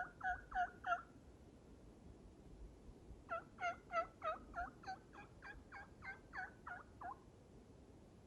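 Turkey yelping: a short run of about four yelps at the start, then, after a pause of about two seconds, a longer run of a dozen or so evenly spaced yelps that trail off.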